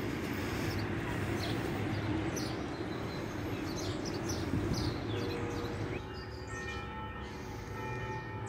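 Outdoor ambience: a steady rumble of distant traffic with birds chirping over it. About six seconds in the rumble drops away and several steady ringing tones of different pitches take over.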